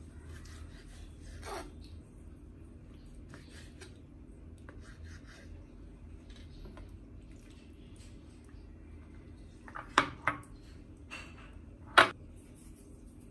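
Kitchen knife slicing raw chicken breast on a plastic cutting board: faint scrapes and soft taps, then sharp knocks twice about ten seconds in and once, the loudest, near the end.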